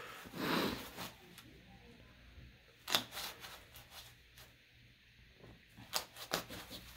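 Gloved hands rubbing and pressing on a wet fiberglass leg cast and a plastic-covered foot pad: faint rustling and rubbing with a few sharp clicks, the loudest about three seconds in.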